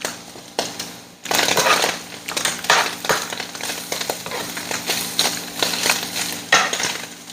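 Metal spatula scraping and stirring crispy shredded chicken in a frying pan: irregular crunchy scrapes against the pan, with a faint frying sizzle underneath.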